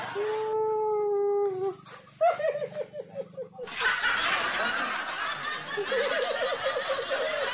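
Shrill, ghost-style laugh: a long held high wail, then a rapid cackling 'hihihi' falling in pitch, with a burst of hissing noise in the middle and a second run of cackling near the end.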